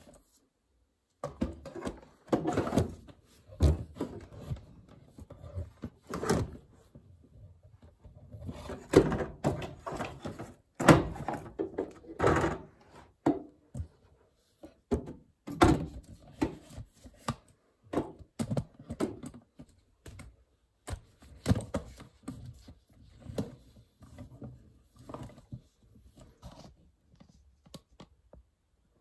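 Irregular knocks, clunks and short rattles of hand tools and loose parts being handled while dismantling a Peugeot 106's engine bay, with no steady rhythm; the loudest clunks come near the middle.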